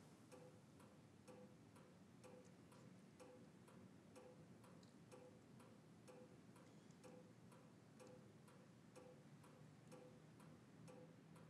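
A clock ticking faintly and steadily in a quiet room, about two ticks a second.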